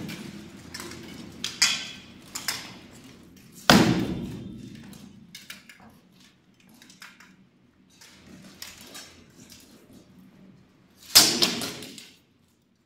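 Armoured sword-and-shield sparring: steel swords striking shields and plate armour in scattered sharp clangs and knocks. The two heaviest blows, about four seconds in and near the end, ring on briefly.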